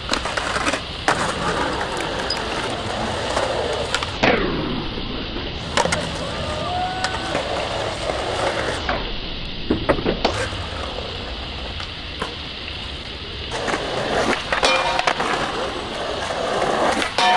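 Skateboard wheels rolling on concrete, broken by repeated sharp clacks as the board pops, lands and strikes ledges and a rail.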